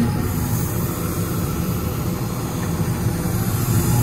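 Develon DX235LCR-5 excavator's diesel engine idling, a steady low drone.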